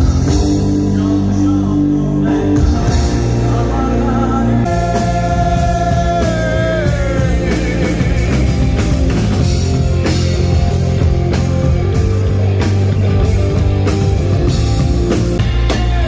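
Rock band playing live through stage amps: guitars hold steady chords, and a drum kit comes in with a steady beat about five seconds in. A male singer sings a line that bends and falls in pitch.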